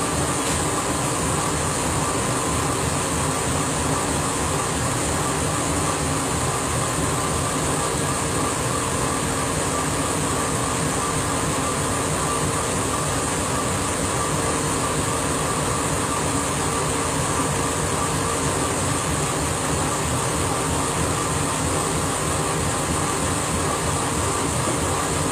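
Laser engraver running an engraving job: a steady mechanical whir and hum from the machine, with a fine fast flutter underneath, unchanged throughout.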